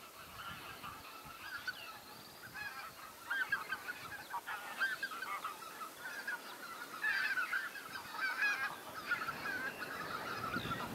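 A large flock of greater white-fronted geese calling: a dense chorus of overlapping short honking calls, busiest from about three to nine seconds in. Wind rumbles on the microphone, stronger near the end.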